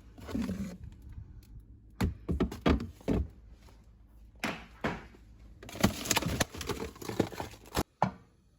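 Kitchen food-prep handling sounds: a few knocks and clatters, then about two seconds of rustling and scraping that cuts off abruptly near the end.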